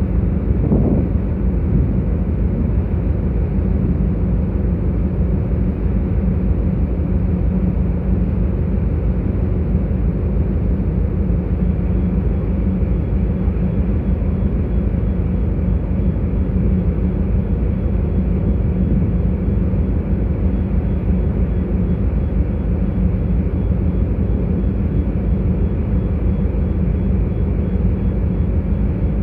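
Steady low drone of a ferry's engines under way, with the rush of water churning along the hull.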